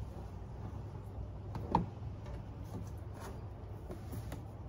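Faint taps and one sharper click about two seconds in as a metal mesh front grille is pressed by hand into the plastic bumper opening, over a steady low hum.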